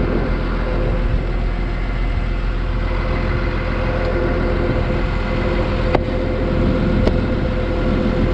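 Motor grader's diesel engine running steadily at a constant speed, with two sharp clicks in the second half.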